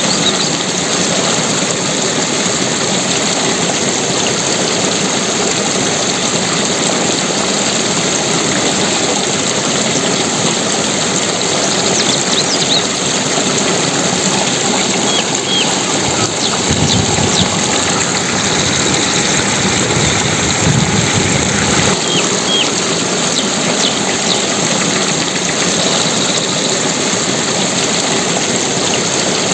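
Steady rushing water. Just past halfway, a deeper low rumble swells for several seconds, then settles back.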